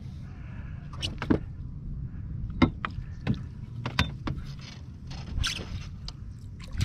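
Scattered sharp knocks and clicks, about a dozen, from gear and a landing net handle against a plastic fishing kayak, over a low steady rumble while the net is worked in the water beside the boat.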